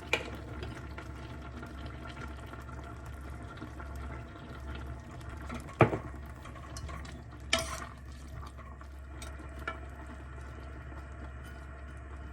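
Water running steadily from a tap, with a few sharp clicks or knocks over it, the loudest about six seconds in.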